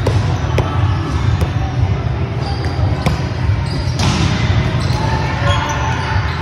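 Volleyball game in a large gym: sharp knocks of balls being hit and bouncing on the hard floor, echoing in the hall over a steady low hum, with a louder hit about four seconds in. Players' voices call out now and then.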